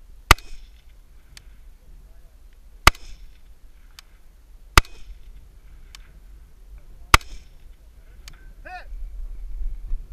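Four rifle shots from a scoped rifle, spaced about two seconds apart, each with a short echo. A much fainter tick follows about a second after most shots, the sound coming back from the distant targets.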